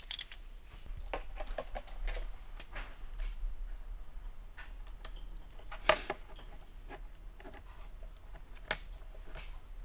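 Small clicks, taps and rustles of hands working on a plastic side-mirror housing and its wiring, with two sharper clicks about three seconds apart, over a faint steady low hum.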